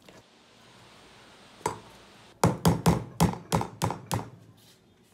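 A metal spoon knocking against a plastic mixing bowl of fresh-corn tamale masa: one knock, then a quick run of about eight sharp knocks, roughly four a second.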